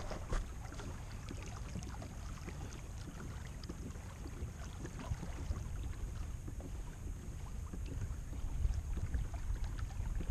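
Wind rumbling steadily on the microphone, with scattered faint ticks and taps around a kayak on calm water.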